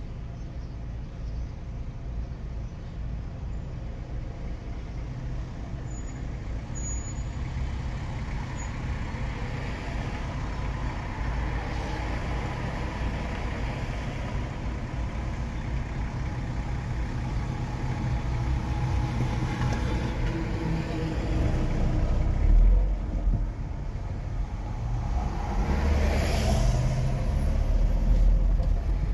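Road vehicle engine and road noise while driving, a steady low rumble that grows louder after about twenty seconds. A thump comes about 22 seconds in and a brief hiss about 26 seconds in.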